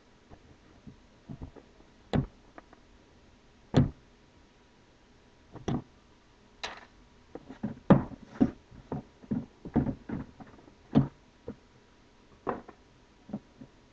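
Scattered sharp knocks, taps and light rubs from a tablet's cardboard retail box being handled, turned over and opened, with its lid lifted off. They come irregularly, busiest in the second half.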